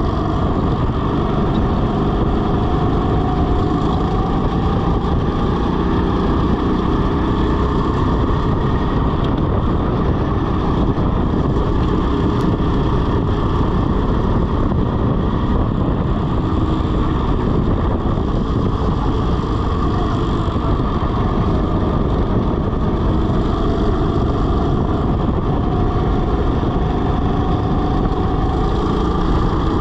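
Rental go-kart engine running at speed, its pitch rising and falling as the kart speeds up and slows through the corners.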